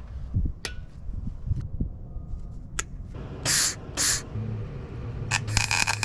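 Short bursts of arc welding as a nut is welded onto a broken wheel stud: two brief hissing tacks in the middle, then a longer crackling, buzzing weld near the end over the welder's low hum, after a few light clicks.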